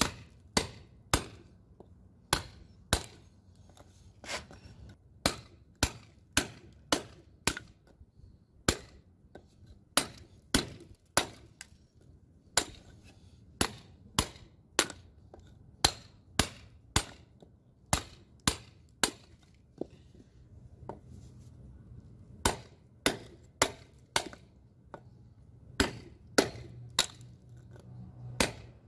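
Steel club hammer striking a cold chisel to chip a hole through a concrete floor: sharp, separate hits about one or two a second, in short runs with brief pauses between them.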